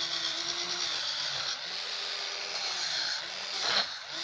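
Small electric motor of a face-cleansing brush converted into a mini sander, whirring steadily as its abrasive disc scrapes across a wooden block. There is a louder scrape near the end.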